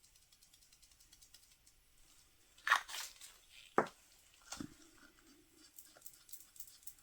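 Small craft containers being handled while pink glitter is added to resin: a few sharp clicks and knocks a few seconds in, with a short crinkly rustle, then faint light ticking near the end.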